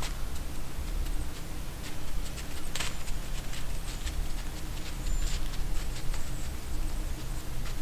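Scattered soft crunches and rustles in snowy woods over a steady low rumble, one crunch louder about three seconds in, with a brief thin high squeak about five seconds in.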